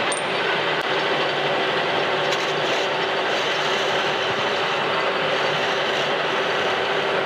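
Metal lathe running under a cut: a carbide tool turning the brass face of a spinning valve part, a steady machining noise with a low hum underneath.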